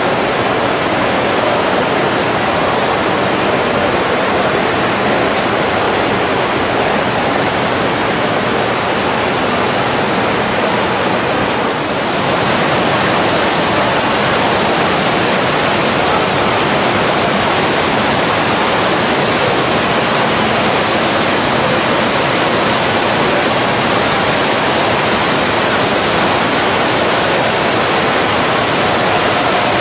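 Water falling steadily over the rock cascade of a large ornamental statue fountain, a constant splashing rush with a brief dip about twelve seconds in.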